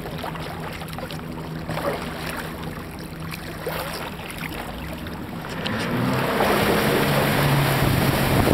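Boat engine running with a steady low hum under the rush of water and wind. About six seconds in, the rushing noise grows much louder.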